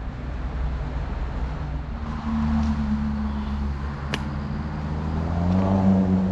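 Highway traffic with tractor-trailer engines droning steadily, one growing louder near the end as it approaches.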